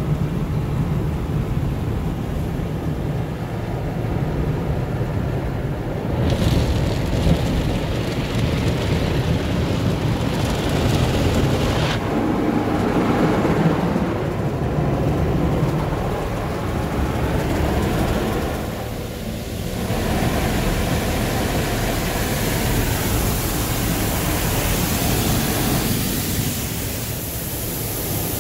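Automatic tunnel car wash heard from inside a van's cabin: water spray and wash equipment beating on the body and windshield over a steady low rumble. The spray grows hissier in the second half, as foamy soft-cloth brushes reach the windshield near the end.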